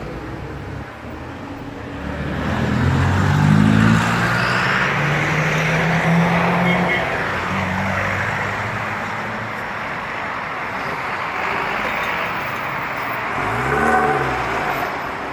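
Road traffic: a vehicle engine speeding up about two seconds in, then running steadily, and another vehicle passing near the end, over constant traffic noise.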